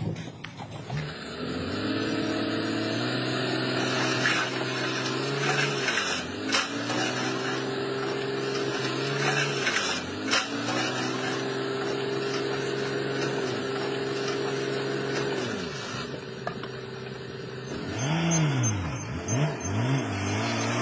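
Engine of heavy earthmoving machinery running under load, its pitch holding steady for stretches, then dropping and climbing again as it revs. Near the end it revs up and down in quick swings. A few sharp knocks sound in the first half.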